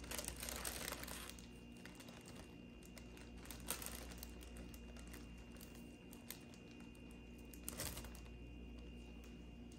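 Plastic oven bag crinkling faintly as it is handled, with louder rustles near the start, about four seconds in and about eight seconds in.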